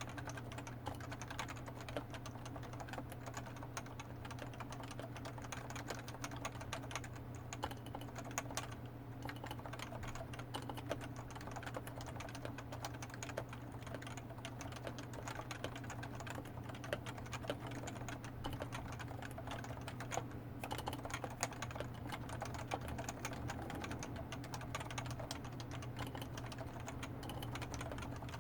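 Continuous typing on a Topre Realforce 87U tenkeyless keyboard with 45 g electrostatic capacitive Topre switches and PBT dye-sublimated keycaps: a dense, irregular run of soft keystrokes, with Krytox-lubricated stabilizers on the larger keys. A steady low hum runs underneath.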